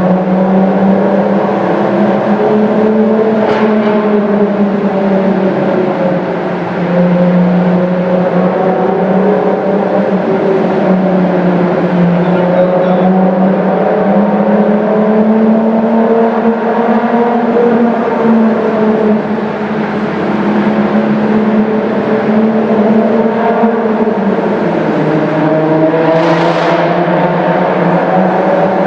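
Highly modified Hyundai Genesis Coupe 3.8's V6 engine running steadily inside a tunnel, its pitch rising and falling gently. The sound eases off briefly twice, about a quarter of the way in and again about two-thirds in.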